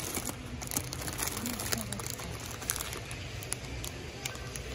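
Plastic instant-noodle packet crinkling and rustling in the hand, a run of irregular short crackles, densest in the first two seconds, over a steady low hum.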